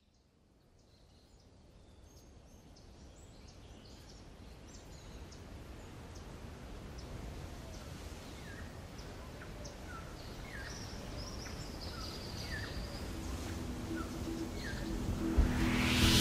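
Birds chirping over a low, even rushing ambience, fading in from silence and growing steadily louder. This is the nature-sound opening of a background music track, which swells near the end as the music begins.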